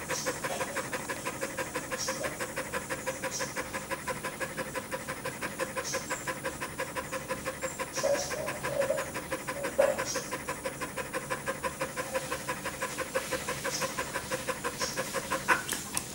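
Dog panting fast with its tongue out, about five quick, even breaths a second: an overheated, tired dog cooling itself down after running hard in summer heat.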